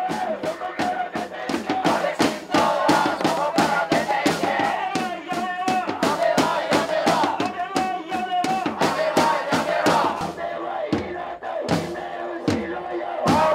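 A crowd of protesters chanting in unison, led through megaphones, over a steady, fast beat of marching snare drums and hand-held frame drums.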